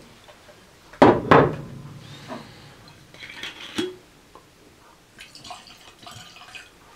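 Fortified wine poured from a bottle into a glass, with light clinks of glass on glass. About a second in there is a short loud vocal sound.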